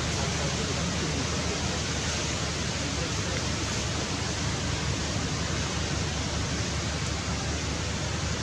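Steady, even hiss with no distinct events or pitched calls.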